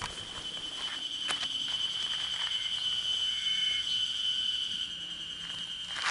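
Steady high-pitched insect drone, one unbroken tone, with a few sharp knocks about a second in and right at the end.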